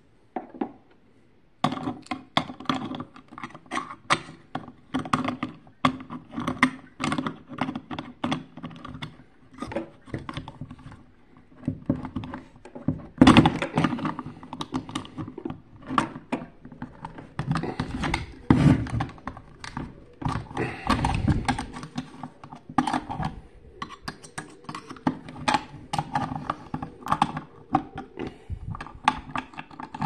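Hand tools clicking, scraping and knocking against a vacuum cleaner motor's sheet-metal impeller as a screwdriver is wedged in its blades and a wrench works on the nut that holds it, loosening the impeller. Irregular, dense metallic clatter starting about two seconds in, with louder bursts of knocking in the middle.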